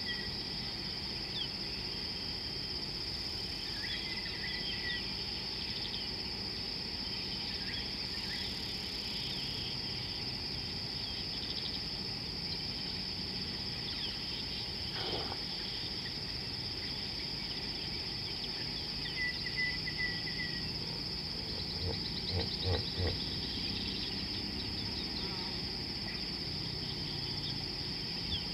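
Steady high-pitched trilling of insects, with a few brief bird chirps over it. A few soft low thumps come about two thirds of the way through.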